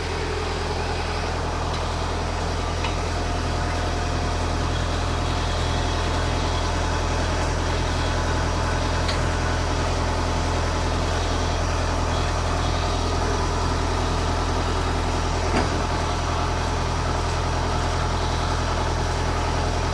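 Heavy diesel engine idling steadily, with one short knock about three-quarters of the way through.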